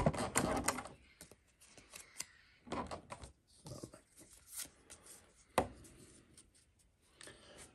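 Trading cards and a clear plastic display tray being handled: rustling, rubbing and light clicks as cards are popped out of the tray's compartments, busiest in the first second, with one sharper click about five and a half seconds in.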